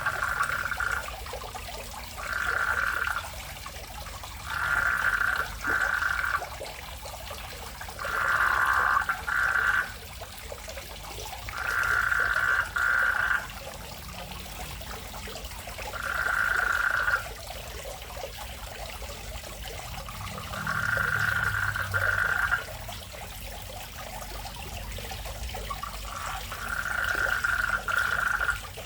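Frogs calling in a garden fish pond: repeated calls, each lasting one to two seconds and coming every three to four seconds, over a low steady rumble.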